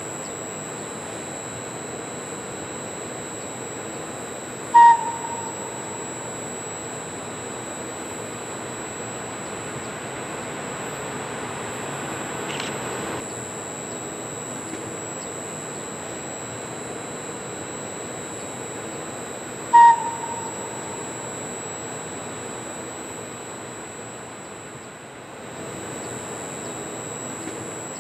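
N-scale model E646 electric locomotive running along the track with a steady running noise. It gives two short, high horn toots about fifteen seconds apart, one about five seconds in and one about twenty seconds in.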